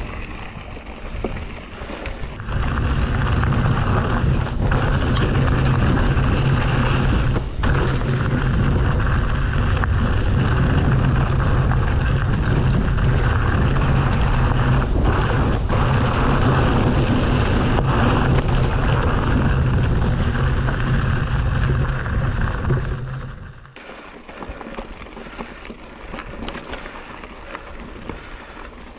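Wind buffeting the action camera's microphone and a hardtail mountain bike's tyres rumbling over a dirt trail at speed, a steady loud rush that drops to quieter tyre-on-dirt noise near the end.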